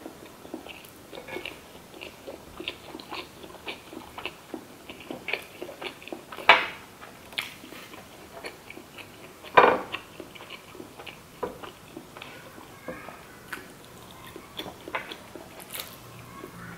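Close-miked chewing of sushi rolls: a steady run of soft, wet mouth clicks and smacks, with two louder sharp clicks about six and a half and nine and a half seconds in.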